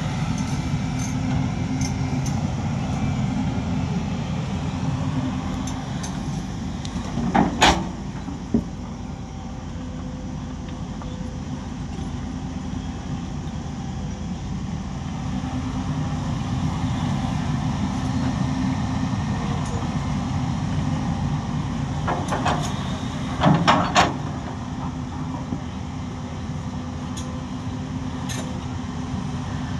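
Heavy construction machine's diesel engine running steadily, with short bursts of loud metallic clanking about a quarter of the way in and again about three quarters through.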